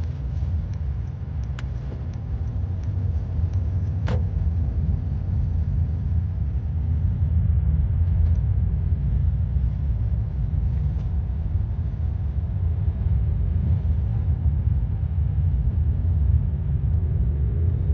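Steady low road and engine rumble inside a moving car's cabin, with two brief faint clicks in the first few seconds.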